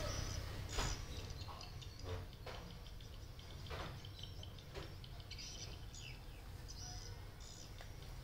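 Birds chirping faintly in the background, with a few soft crunching clicks from a kitten eating dry food out of a bowl, spread over the first five seconds or so.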